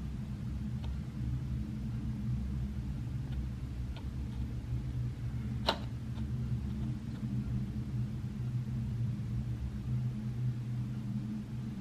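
Steady low background hum, with a single sharp click about halfway through and a few faint ticks.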